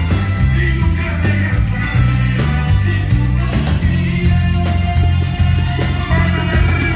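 Live reggaeton concert music played loud through the PA, with a strong stepping bass line and a singer's vocals over it.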